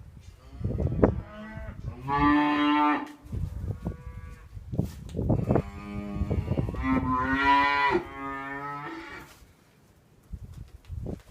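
Young beef calves, freshly taken off their mothers, bawling: one call about two seconds in, then longer calls between about five and nine seconds. Short knocks and shuffling sound beneath them.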